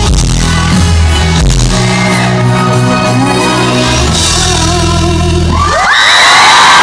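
Live band music with a sung line winding down, then about six seconds in a crowd of fans breaks into high-pitched screaming and cheering.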